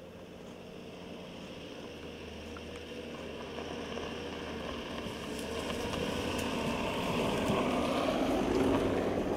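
2014 Audi Q7 SUV approaching on a dirt track and passing close by: engine and tyres on the dirt growing steadily louder, peaking about eight to nine seconds in, then starting to fade, with a few small crackles along the way.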